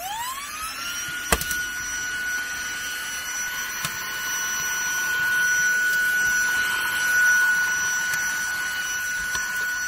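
Autobot VX cordless handheld vacuum cleaner switching on. Its motor whine rises quickly, then settles into a steady high whine with rushing air as it sucks up wood chips from the floor. There is a sharp click about a second in.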